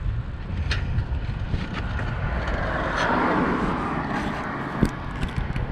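Wind rumbling on the microphone while riding a bicycle down a street, with scattered light clicks and rattles. A rushing hiss swells about halfway through and fades again.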